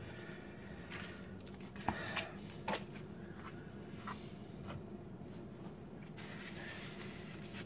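Faint handling sounds: a few soft taps as raw salmon pieces are moved about on a plastic cutting board, over a low steady room hum.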